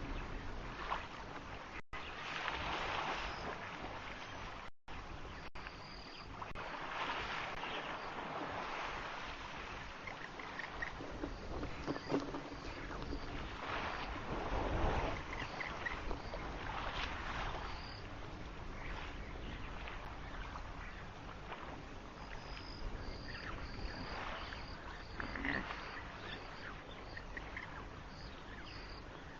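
Water splashing and sloshing in swells as young African elephants play and dive in a waterhole, with short high bird chirps over it, more of them near the end.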